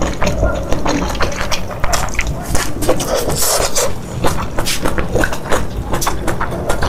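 Close-miked eating: wet chewing and slurping of noodles and soup, with many quick, sharp smacks and clicks and a short hissing slurp about halfway through.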